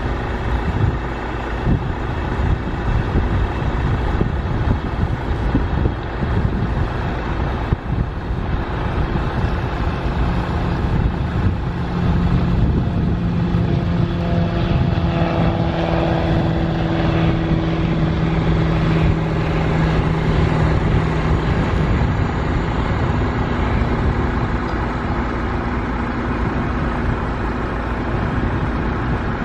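Piston engine of a light single-engine tow plane running at full power as it takes off towing a glider: a droning hum that is strongest from about twelve to twenty seconds in, over a heavy rumble of wind on the microphone.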